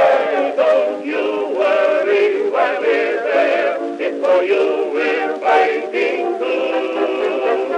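Music: an old recording of a World War I-era popular song, with male singing and band accompaniment, its sound thin with no bass.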